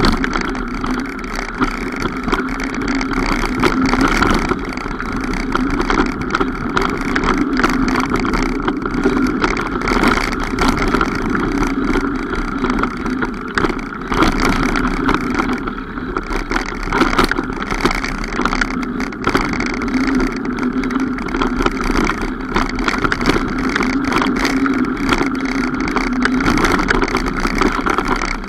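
Continuous noise of a mountain bike being ridden on a trail: a steady drone with many small rattling clicks throughout.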